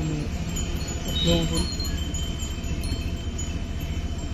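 Small bells ringing with a steady high chiming over a low rumble.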